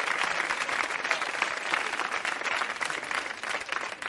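Audience applauding after a stand-up punchline, a dense patter of clapping that thins out near the end.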